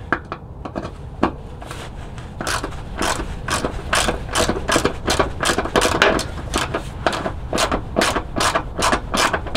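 Ratchet wrench with an extension clicking as it is swung back and forth, loosening a running-board bracket bolt. A few scattered clicks at first, then a steady run of about three clicks a second from a couple of seconds in.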